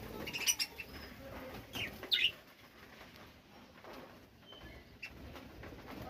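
Budgerigars chirping, with wings fluttering as some of them fly about. A few short, sharp chirps come in the first half, the loudest a little over two seconds in, and then it goes quieter.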